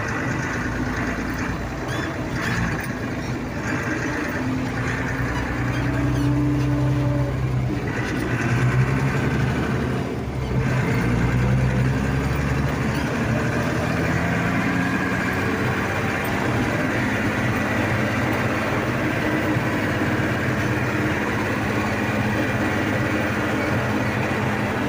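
Case 1594 tractor's diesel engine running as it is driven, heard from inside the cab. Its note rises and grows louder between about five and nine seconds in, dips briefly about ten seconds in, then settles into a steady run.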